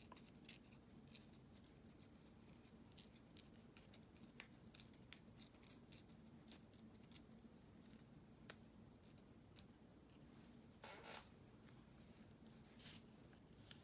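Faint paper handling: scattered small clicks and crinkles as fingers work a small cut paper word strip, peeling a piece of backing from it, with a brief rustle about eleven seconds in.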